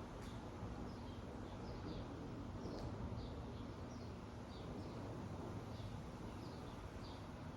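Harbor Breeze Saratoga 56-inch ceiling fan running on high speed: a steady rush of moving air with a faint low motor hum. Faint, short, high chirps recur about every half second over it.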